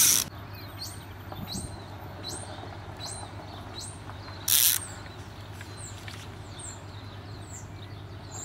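A small bird calling, a quick run of about six short high notes each falling in pitch, then fainter calls. About four and a half seconds in comes one brief loud rasp of a fly reel's click-and-pawl ratchet as line is pulled off. A steady low hum runs underneath.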